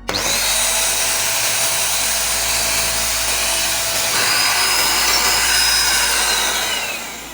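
AGARO Regal 800 W handheld vacuum cleaner switched on, its motor running loud and steady with a high whine. About four seconds in, the whine shifts to a higher tone. Near the end it is switched off and the whine falls away as the motor spins down.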